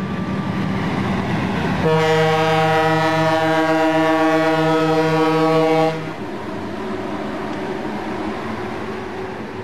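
Locomotive horn sounding one long blast of about four seconds, several tones at once, starting about two seconds in, with the rumble of a train before and after it.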